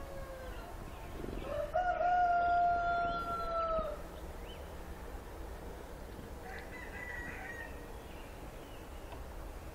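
A rooster crowing once: one long, steady call that starts a little under two seconds in and trails off about two seconds later, after the fading end of an earlier crow at the start.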